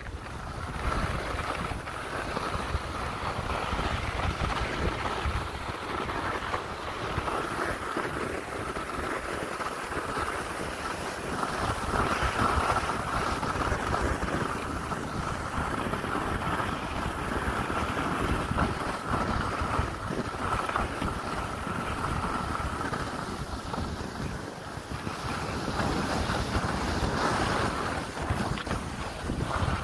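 Skis hissing over snow on a downhill run, with wind buffeting the microphone; the rushing swells and eases but never stops.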